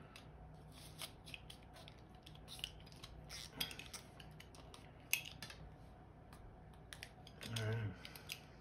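Cleaning rod with a paper patch scraping and clicking against a brass airsoft inner barrel: light, irregular metallic clicks and scrapes, with one sharper click about five seconds in.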